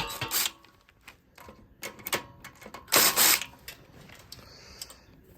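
Hand-work clicks and light metallic clatter while the engine's ground wire and connectors are undone, with a louder brief scraping rustle about three seconds in.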